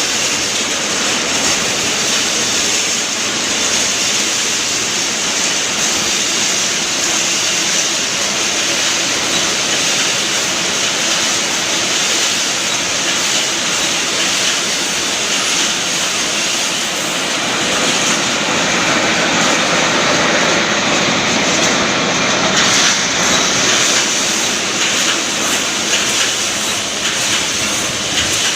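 Automatic wire mesh welding machine line running: a loud, steady mechanical din with a strong hiss, and a few sharp clicks near the end.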